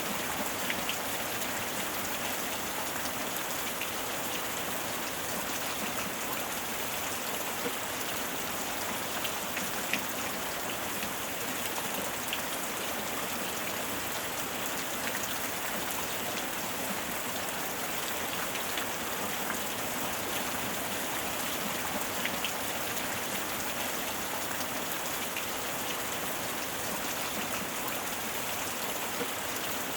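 Steady heavy rain falling, an even hiss with many small drops pattering and ticking on surfaces.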